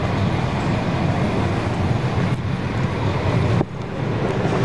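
Steady city street traffic noise with a low rumble. The level drops sharply about three and a half seconds in, then picks up again.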